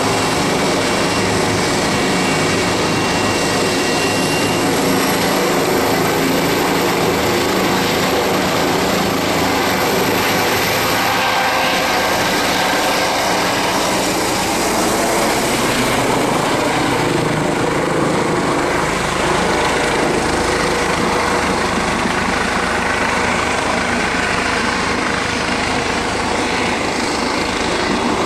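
Eurocopter EC135 air-ambulance helicopter lifting off and departing: steady turbine whine and rotor noise, with a thin high whine that rises in pitch over the first ten seconds or so.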